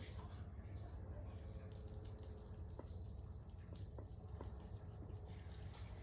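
A thin, steady, high-pitched insect drone, cricket-like, sets in about a second and a half in and stops near the end. It runs over a low steady hum, with a few faint clicks.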